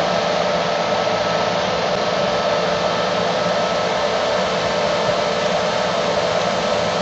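Anycubic Kobra 2 Neo 3D printer running while it extrudes filament: a steady fan-like whir with a few faint steady tones from the printer's motors.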